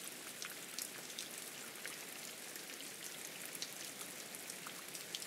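Rain falling: a steady hiss with scattered drop ticks.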